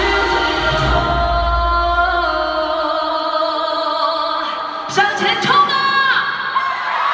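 Live pop music with choir-like sung vocals holding long notes over the band; the low bass drops out about three seconds in, leaving the voices, and a solo voice sings a short gliding line near the end.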